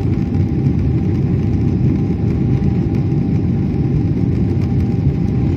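Jet airliner cabin noise as the plane rolls down the runway for takeoff: engines and wheels make a loud, steady rumble with a faint steady whine above it.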